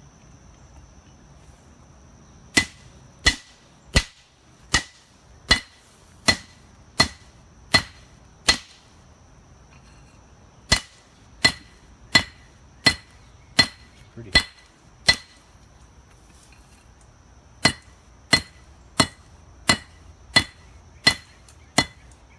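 Hand hammer striking metal on an anvil, forging a mokume-gane billet. The blows come in three runs of seven to nine strikes, about 0.7 s apart, each ringing sharply, with short pauses between runs. A faint steady high whine sits underneath.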